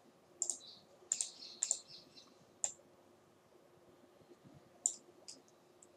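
Scattered sharp clicks of a computer mouse and keyboard being worked, most of them in the first three seconds and a couple more near the end, over a faint steady hum.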